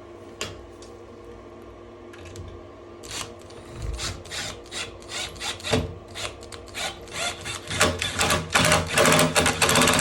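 A wood screw being driven into a stripped door-handle screw hole packed with glued toothpicks: short rasping creaks of the screw biting into the wood, coming faster and louder toward the end.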